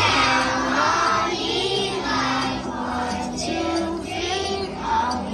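A group of young children singing together over accompanying music.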